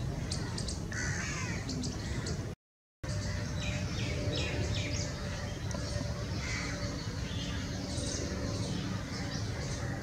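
Birds calling: many short, high, thin chips, with a few lower, harsher calls among them, over a low steady rumble. The sound cuts out completely for a moment shortly before a third of the way in.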